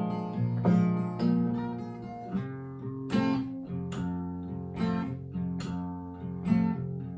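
Acoustic guitar playing an instrumental blues break, with sharp plucked treble notes over a repeating bass line.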